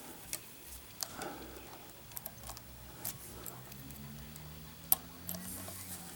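Scattered small metal clicks and taps of a Z-bar tension wrench being fitted into the keyway of a Master Lock M5 padlock; the sharpest click comes about five seconds in.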